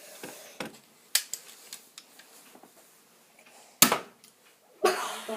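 A few sharp plastic clicks and knocks from the hover drone toy and its packaging being handled, the loudest about four seconds in.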